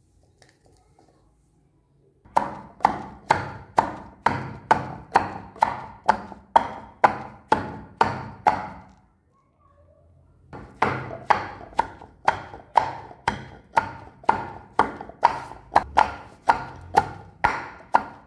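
Pestle pounding garlic, ginger and dried red chillies in a kundi mortar: steady knocks about two a second. The pounding starts about two seconds in, stops for a moment about nine seconds in, then goes on again.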